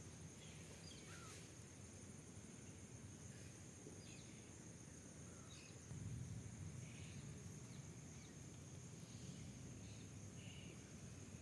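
Near silence: faint outdoor ambience with a low rumble, a steady high-pitched insect-like buzz, and scattered faint short chirps.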